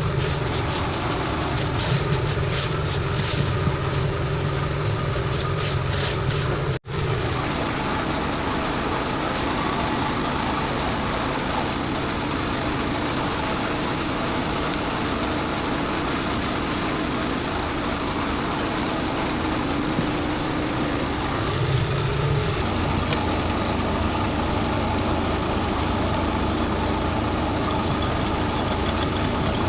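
A steady mechanical hum like a running motor, with rapid ticking in the first few seconds and a brief dropout about seven seconds in.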